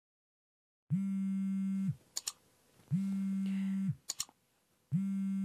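Mobile phone vibrating with an incoming call: three buzzes, each about a second long, about two seconds apart, each spinning up at the start and winding down at the end.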